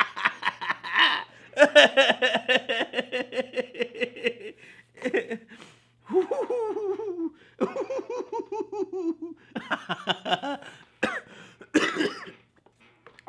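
A man laughing hard in fits: a quick run of "ha-ha" pulses, then long wavering high laughs, breaking into a couple of coughs near the end.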